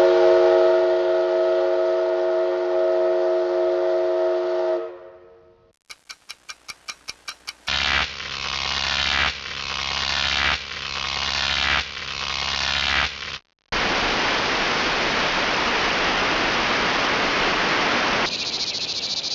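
Edited sound effects in sequence: a chime rings and fades out over about five seconds, then comes a quick run of ticks, then a rhythmic sound repeating about every second and a half, then a steady hiss.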